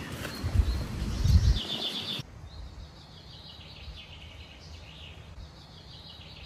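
Wild birds singing and chirping in the background throughout. In the first two seconds, a few low, muffled thumps are the loudest sound, then they stop abruptly and only the birdsong goes on.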